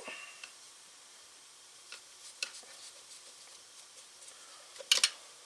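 Scattered light clicks and metallic taps of hand tools and small parts handled during a chainsaw teardown, with a sharper double click near the end.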